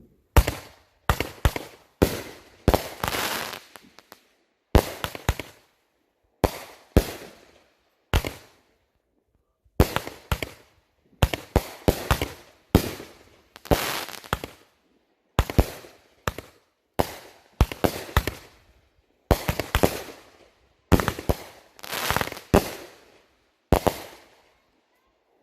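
Consumer fireworks going off in quick succession: sharp bangs about one to two a second, each trailing off in a short crackle, with a brief pause about a third of the way through.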